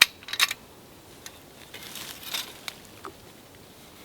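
Parts of a homemade bow saw being handled during assembly: a few separate light clicks and clinks, the sharpest right at the start and a quick cluster about half a second in, with a brief scuffing sound near the middle.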